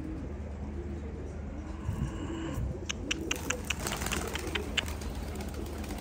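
Domestic pigeons cooing repeatedly. About three seconds in comes a quick run of sharp clicks lasting a couple of seconds.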